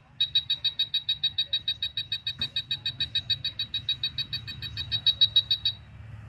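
UNI-T UT387E wall scanner beeping rapidly, about eight short high beeps a second, as it detects a target in the wall with its signal bar at maximum. The beeping stops near the end.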